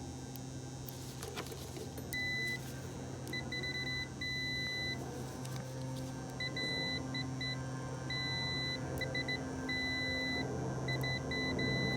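Multimeter continuity beeper sounding in short chirps and longer steady beeps as the probes touch across the fuses, starting about two seconds in: the fuses have continuity and are good. A steady low hum runs underneath.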